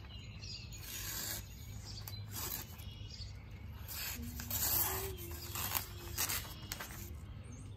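Cold Steel Raja 3 folding knife slicing through newspaper: several short, rasping cuts with paper rustling, over a faint steady hum. The edge has rough spots, so it snags the paper rather than gliding through it.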